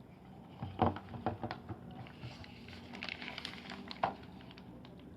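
Handling noises: a quick run of taps and knocks, a brief rustle, then one more knock about four seconds in, over a faint steady low hum.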